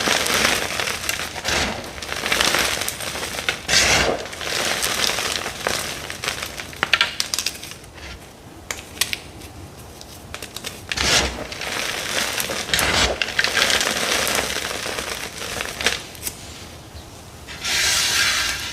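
Dyed gym chalk blocks crunching and crumbling, in uneven bursts with sharp cracks and a longer crumbly crunch near the end.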